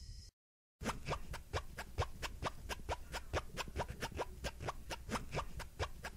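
A steady hiss cuts off, and after a short silence a quick, even run of taps follows, about five a second, each falling in pitch: a footstep sound effect for slippers walking across the floor.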